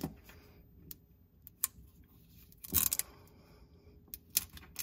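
Fingers pressing a Command Velcro picture-hanging strip onto a matching strip on a tile backsplash: a few soft clicks and rustles, with one short scratchy rasp a little before three seconds in.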